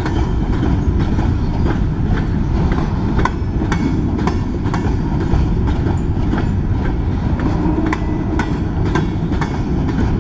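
Freight train of covered hopper cars rolling past: a steady low rumble of steel wheels on rail, with sharp clickety-clack clicks about two a second as the wheels cross the rail joints.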